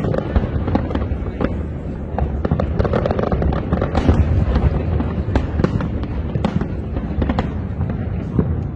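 Aerial fireworks shells bursting in quick succession: many sharp reports several times a second over a continuous low rumble of booms.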